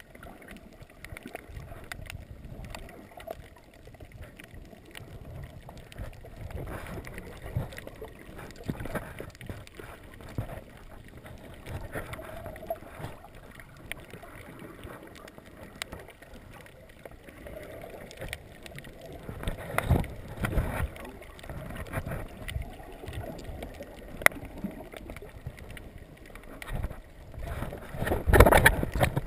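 Muffled underwater sound picked up by a GoPro in its waterproof housing: a low rush of moving water with many faint scattered clicks, swelling louder about two-thirds of the way through and again near the end, as the camera nears the surface.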